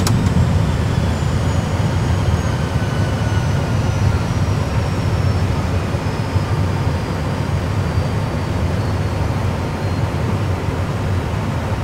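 A320 simulator's jet engine and runway noise during landing rollout: a steady low rumble with a faint turbine whine that falls slowly in pitch as the engine spools down from reverse thrust and the aircraft slows. A single click at the very start.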